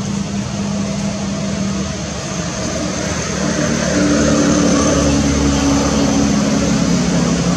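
A motor vehicle's engine running steadily, growing louder about four seconds in.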